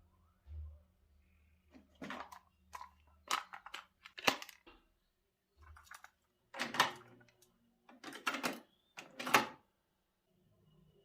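A series of sharp mechanical clicks and clunks, unevenly spaced, the loudest about six of them: the buttons, cassette door and disc tray of a CD player and cassette deck being worked.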